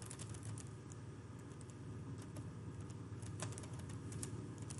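Faint, scattered clicks of computer keyboard keys being pressed, over a low steady hum.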